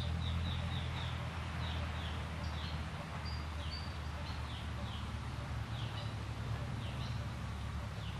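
A small bird's short, high chirps, each falling in pitch, coming quickly at first and then more spaced out, over steady outdoor background noise with a low rumble.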